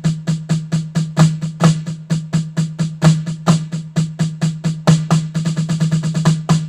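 Snare drum played fast, a quick even run of strokes, about seven a second, with some strokes accented; about five seconds in the strokes become denser, like a roll.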